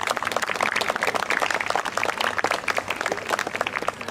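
Audience applauding, many hands clapping at once, the clapping thinning out near the end.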